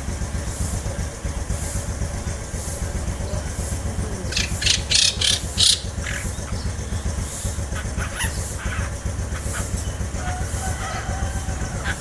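Long-tailed shrike (cendet) calling: a quick run of about five short, rasping notes about four seconds in, then scattered fainter calls, over a steady low rumble.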